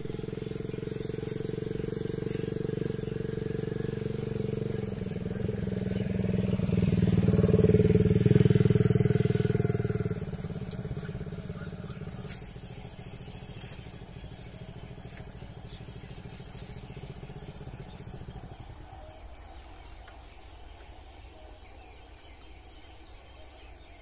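A motor vehicle engine with a steady hum. It grows louder to a peak about eight seconds in, then fades away by about eighteen seconds, as a vehicle passing by and moving off.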